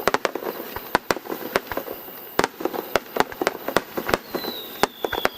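Fireworks going off in a rapid, irregular run of sharp bangs and crackles, with a high whistle coming in about four seconds in and slowly falling in pitch.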